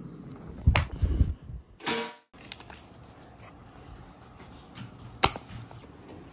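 Handling knocks and rustles, a brief pitched squeak about two seconds in, then one sharp click about five seconds in: a baby car seat's harness buckle snapping shut.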